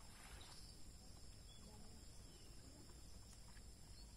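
Near silence, with a faint, steady, high-pitched insect chorus, crickets or cicadas, and a low background rumble.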